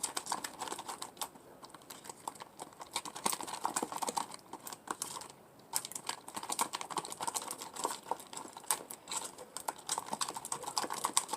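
A spoon stirring sticky slime with foam beads in a bowl: a rapid, irregular run of small clicks and wet pops, with a short pause about five seconds in.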